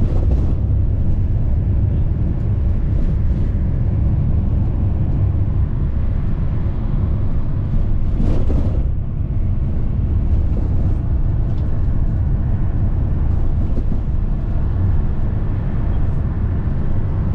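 Steady low road and engine rumble of a moving vehicle, heard from inside it, with a brief louder rush of noise about eight seconds in.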